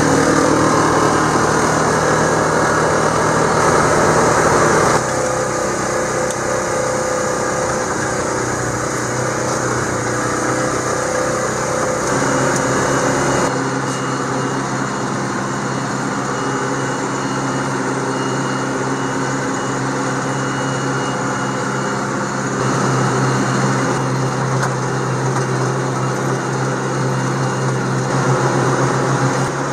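John Deere tractor engine running steadily under way, heard from the cab. The sound shifts abruptly about five seconds in and again about thirteen seconds in, slightly quieter after the first change.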